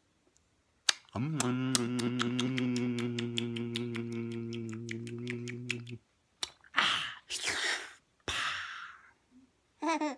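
A man hums one long, low, steady note for about five seconds, with a rapid run of clicks over it, about six a second. A few short breathy huffs follow, and then a brief voiced sound near the end.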